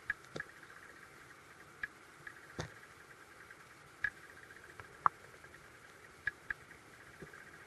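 Underwater creek ambience picked up by a submerged camera: a steady hiss with about a dozen sharp clicks and ticks at irregular intervals.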